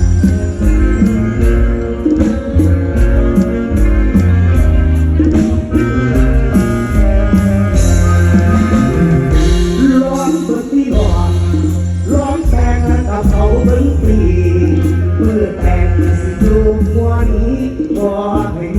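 Live band music with a steady bass and drum beat, cymbal ticks keeping time and melodic lines moving over it.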